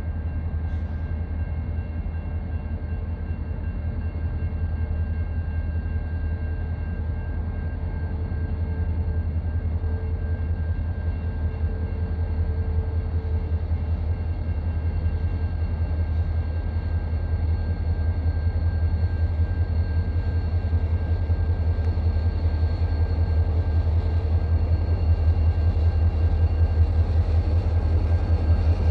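Diesel freight locomotives approaching, a steady low engine rumble that grows slowly louder as they near.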